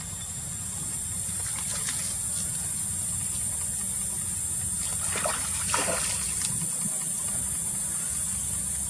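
Shallow pool water sloshing and splashing as a macaque wades through it, with a cluster of splashes about five to six and a half seconds in, over a steady high hiss.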